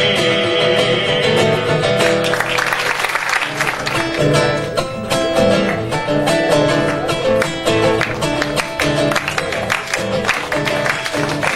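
Instrumental Argentine folk music: acoustic guitars strumming a brisk, even rhythm with a bass line, after a held note that ends about two seconds in.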